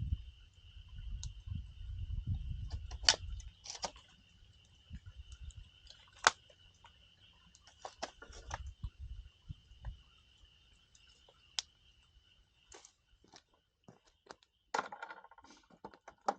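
Wood campfire crackling, with scattered sharp pops from the burning firewood, over a faint steady high-pitched hum.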